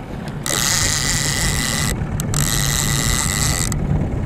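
Trolling reel being cranked to bring in a hooked fish, its gears whirring, with three short pauses in the cranking; a boat's outboard motor runs low underneath.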